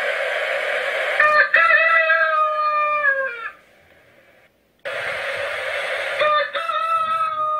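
A rooster crowing twice, a few seconds apart. Each crow opens rough and ends in a long held call that falls in pitch. The first crow is already under way at the start.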